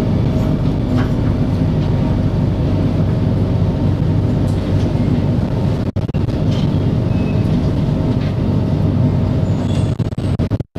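Singapore Circle Line MRT train heard from inside the carriage by the doors, running underground with a steady loud rumble of wheels on rail and a constant hum. The sound cuts out for an instant about six seconds in and again near the end.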